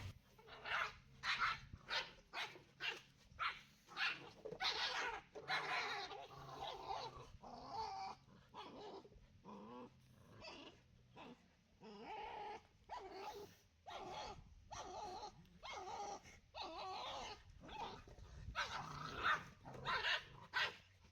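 Dogs fighting: growls and barks in short, rapid bursts, about two a second, with a few longer growls between them.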